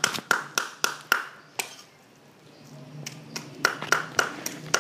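Cleaver chopping raw pork on a round wooden cutting board: quick, even chops about four a second, a pause of about two seconds in the middle, then a few more chops.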